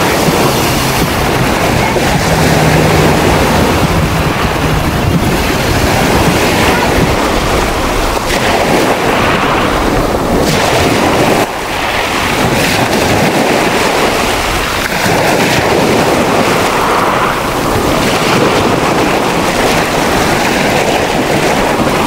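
Storm surf: Black Sea waves breaking and surging against concrete beach slabs and throwing up spray. A loud, steady rushing that swells and eases with each wave.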